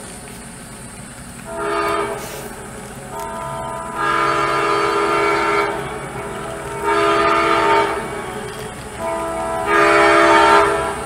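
Sound-equipped HO scale model of an EMD GP30 diesel locomotive blowing its chord horn in four blasts, the second and last the longest, over a steady low rumble.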